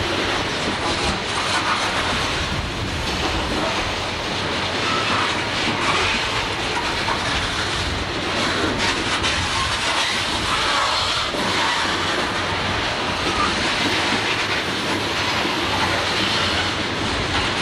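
A CSX freight train of open-top coal hopper cars rolling past close by: a steady, loud noise of steel wheels on rail, with scattered clicks.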